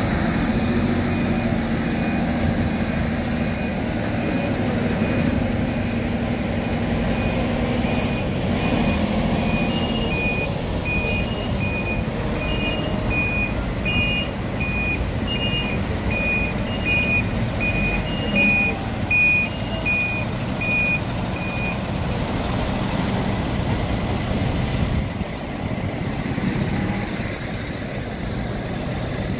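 Reversing alarms of coaches beeping over low engine rumble. One alarm beeps steadily, a second higher-pitched alarm joins in about a third of the way through, and both stop about three-quarters of the way through.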